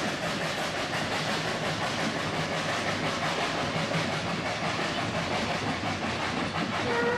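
Narrow-gauge steam train running, a steady hiss and rattle of the train on the move. Near the end its whistle starts, one steady note.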